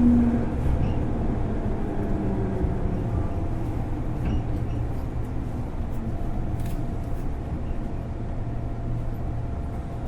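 Interior noise of a JR East 205-series electric train car fitted with MT61 externally fanned traction motors: a steady low rumble, with a slightly falling hum that fades out in the first half second.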